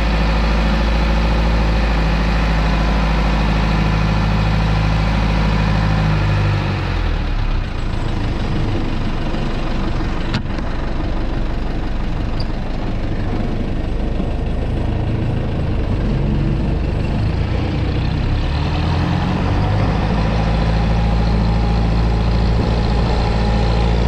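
Isuzu NPR 115 six-wheel truck's diesel engine running while the truck reverses through sandy field soil. Its steady low drone falls away about seven seconds in and builds back up over the last few seconds.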